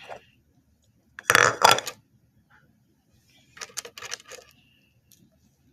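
3D-printed plastic dragon and egg pieces clicking and clattering as they are handled and set in place: a loud cluster of clicks about a second in and a softer one past the middle.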